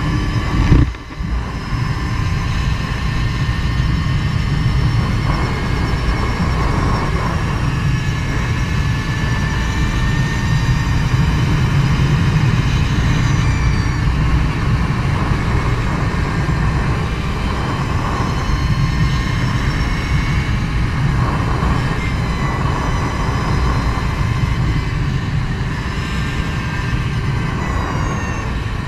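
Energica Eva electric motorcycle under way, its electric drive whining faintly, the pitch rising and falling with speed, under heavy wind and road rumble on the handlebar-mounted camera. A brief thump comes about a second in.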